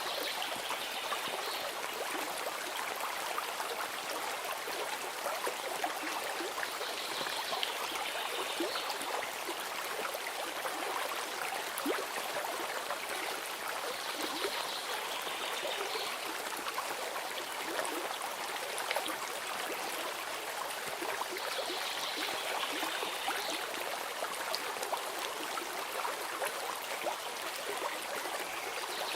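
A stream of water running steadily. A brief high-pitched sound comes back about every seven seconds.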